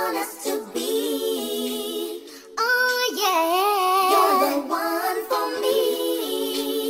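A song playing, a woman's voice singing a wavering melody over thin backing with no bass, with a short break about two and a half seconds in.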